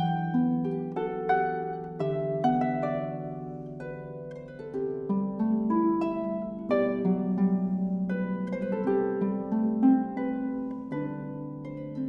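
Solo concert pedal harp playing: a stream of plucked notes, several a second, ringing over sustained low bass notes, with a softer passage around four seconds in.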